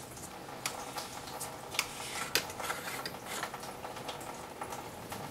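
Plastic radiator cap being unscrewed and lifted off its threaded neck, opened to let air into the cooling system so the coolant drains faster: a series of light clicks and rattles.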